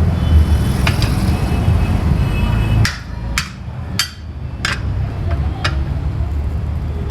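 Hammer striking a steel chisel against a bus tyre's steel rim: about six sharp metallic clangs at uneven intervals, working the tyre loose from the rim. A steady low rumble underneath drops away about three seconds in.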